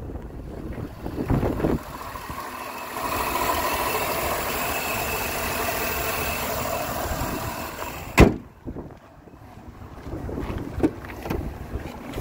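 GMC Sierra pickup's engine idling, heard close up in the open engine bay as a steady mechanical whir. About eight seconds in there is a single loud slam, after which the running sound is much quieter.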